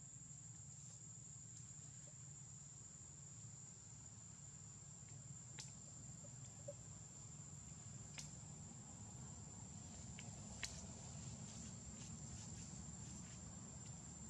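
Faint, steady high-pitched insect trill over a low rumble, with a few sharp clicks, the loudest a little past halfway.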